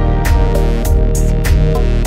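Background music: sustained instrumental tones over a steady percussive beat.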